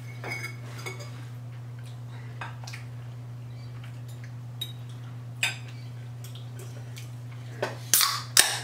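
Forks clinking lightly against plates during a meal, over a steady low hum. About eight seconds in come two louder sharp clatters as an aluminium drink can is handled at the table.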